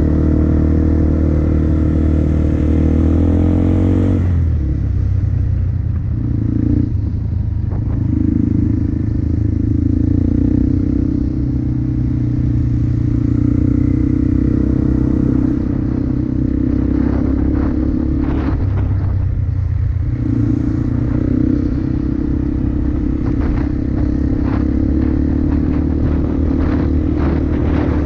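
2004 Yamaha Bear Tracker ATV's single-cylinder four-stroke engine with an FMF exhaust running under way, its note dropping about four seconds in and dipping briefly twice as the throttle eases. Scattered knocks and rattles join in the second half.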